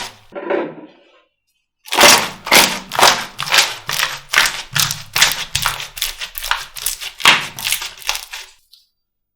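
Slime being pressed and squeezed by hand in a rhythmic run of short, sharp squishes, about two a second and a little quicker toward the end, after a brief pause near the start.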